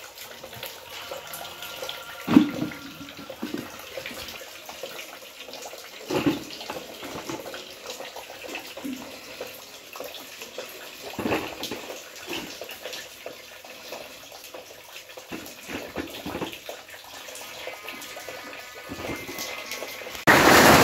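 Steady rain and dripping water after a hailstorm, with a few sharp thuds of hail-fallen green mangoes dropped into a plastic bucket. Near the end a heavy downpour of hail and rain comes in suddenly and loud.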